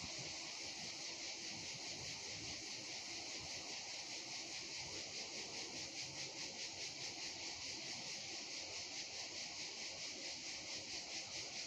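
Faint, steady, high-pitched chorus of insects, pulsing fast and evenly.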